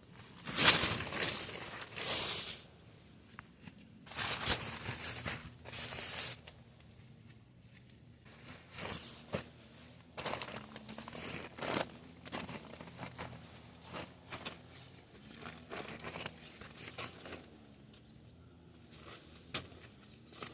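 Handling noises: two long bursts of rustling and crinkling in the first six seconds, then scattered small clicks and knocks.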